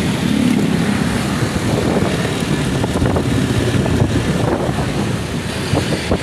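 A motor vehicle running on the move, a steady loud rumble of engine, road and wind noise with scattered rattles.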